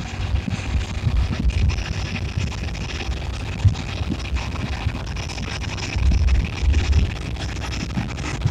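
Wind buffeting the microphone of a moving motorcycle, a heavy low rumble with the engine and road noise underneath. The buffeting swells for about a second near the end, and there is one short knock about midway.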